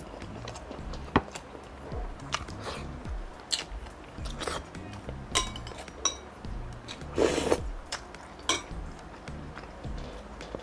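Close-miked eating sounds: mouth clicks and smacks as a man chews rice and grilled meat eaten by hand, with a metal spoon clinking twice against a glass bowl around the middle. Soft background music plays underneath.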